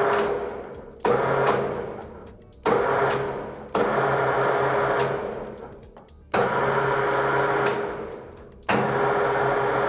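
Lathe motor switched on and off again and again with its repaired push-button switch: each press brings a sudden start and a steady hum that dies away within a second or two as the motor runs down, about six times over. The switch now springs back and works.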